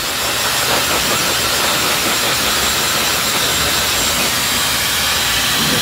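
Handheld hair dryer running steadily, a continuous hiss of blown air, rough-drying permed hair.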